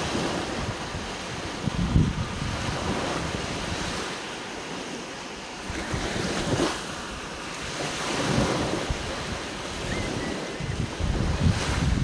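Sea surf washing onto a sandy beach, the wash swelling and ebbing every few seconds as small waves break and run up the sand. Wind buffets the microphone in gusts.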